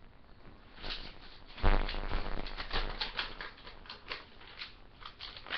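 Close handling noise: a run of irregular clicks, taps and rustles as someone moves about and sits back down in front of the webcam, with one heavy thump about a second and a half in.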